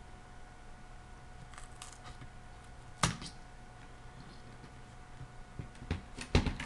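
Plastic screen bezel of a Gateway LT2016 netbook being pried loose by hand: scattered clicks and snaps, with a sharp one about three seconds in and a quick cluster near the end.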